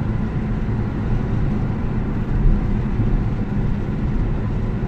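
Car engine running and road noise, heard steady from inside the cabin while driving.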